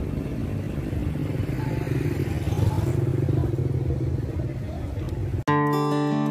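Motorcycle tuk-tuk's engine running with a rough low rumble amid street traffic noise. About five seconds in it cuts off abruptly to strummed acoustic guitar music.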